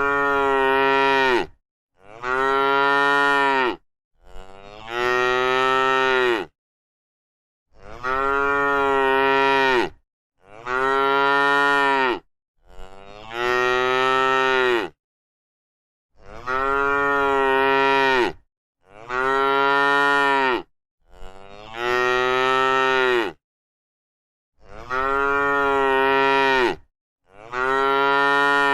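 A cow mooing: a long, steady, drawn-out moo about two seconds long, repeated about every two to three seconds with dead silence between calls. The calls are nearly identical, each dropping in pitch at its end.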